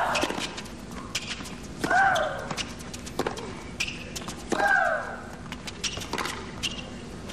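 Tennis rally: a woman player lets out a loud shriek that falls in pitch as she hits the ball, three times about two and a half seconds apart. Sharp pops of racquet strikes and ball bounces sound between the shrieks.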